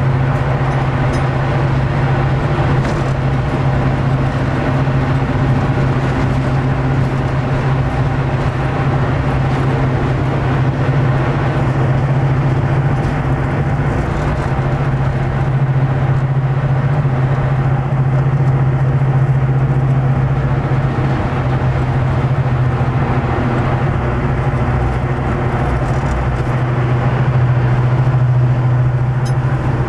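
British Rail Class 55 Deltic's Napier Deltic two-stroke diesel engines running steadily, heard from inside the cab as the locomotive moves slowly, a steady low drone with no break.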